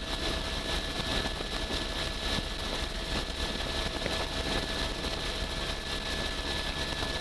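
Helicopter in flight: steady engine and rotor noise with a constant high whine.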